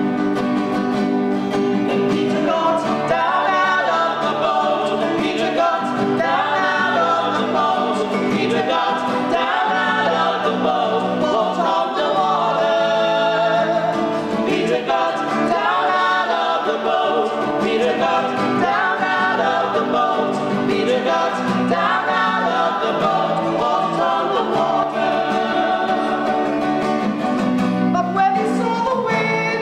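Sung Gospel reading: voices singing a melody to acoustic guitar accompaniment, the guitar alone at first and the singing coming in a couple of seconds in.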